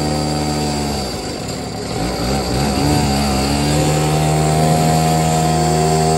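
Mini motorcycle's small petrol engine running at high revs under way, a steady buzz. About a second in the revs drop and waver, then climb back and hold steady.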